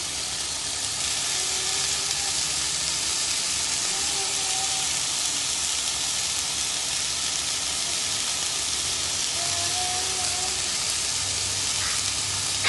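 Pork steaks sizzling steadily on a hot grill plate, an even hiss of fat and juices frying, cut off abruptly at the end.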